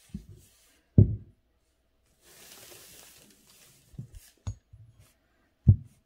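Handling of the calligraphy paper on the desk: a brief paper rustle and several dull thumps, the loudest about a second in and another near the end.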